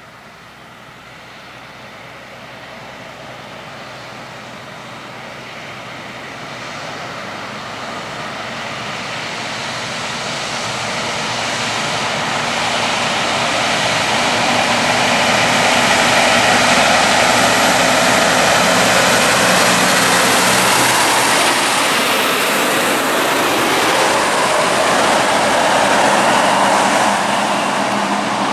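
Triple-tanker road train approaching and going past: the prime mover's diesel engine works under load, growing steadily louder for about the first half, then stays loud as the tyres of the trailers roll by.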